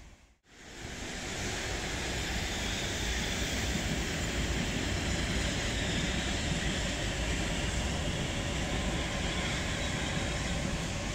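Oslo metro train of the MX3000 type running along the track, a steady noise of wheels on rails that sets in after a brief dropout just after the start.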